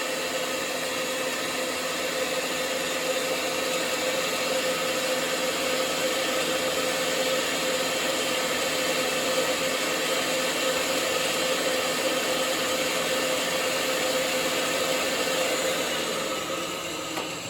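Electric pipe-threading machine running steadily with a constant hum as its die head cuts threads on a steel pipe; the sound starts to die away near the end.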